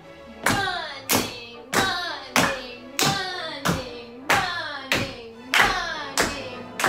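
Hands clapping a steady beat for a rhythm game, about eleven even claps at roughly one and a half a second. Each clap carries a short pitched sound that dips and then rises in pitch.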